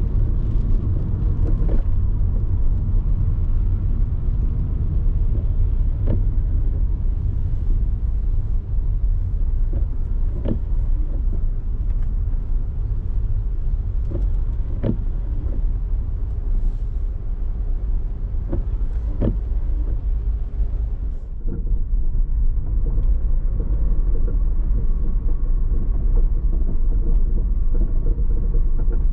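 A car driving on city streets: a steady low rumble of engine and tyres on the road, with a scattering of short sharp ticks. The sound dulls briefly about two-thirds of the way through.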